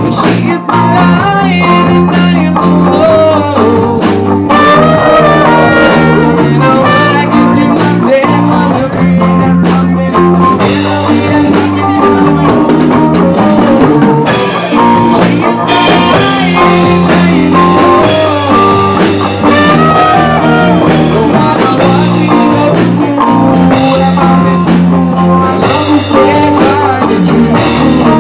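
Live band playing: electric bass, electric guitar and drum kit, with a trumpet carrying held melodic lines over them.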